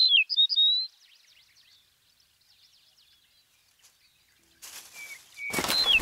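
Small songbird chirping: a quick run of short sliding notes, then faint high twitters. A near-silent gap follows, and from about five seconds in a loud rustle sets in with the same quick chirps again near the end.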